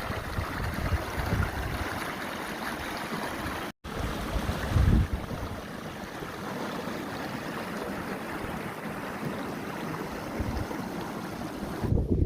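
Breeze blowing over the microphone outdoors: a steady rushing hiss with low buffeting gusts, the strongest about five seconds in. The sound drops out completely for a moment just before four seconds, an edit cut.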